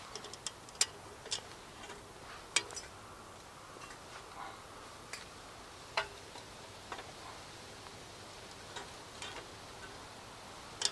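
Light clicks and taps of camp cookware and utensils being handled, at irregular intervals, over a faint outdoor background hiss.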